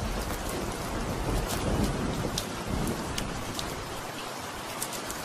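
Steady rain with scattered drop ticks, and low thunder rumbling under it that dies away about four seconds in.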